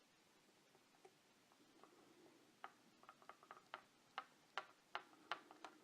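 X-Acto knife blade working into the seam of a soft plastic action figure's torso, giving a run of sharp, irregular small clicks, several a second. The clicks start about two and a half seconds in and grow louder toward the end; the cut is going a little tough.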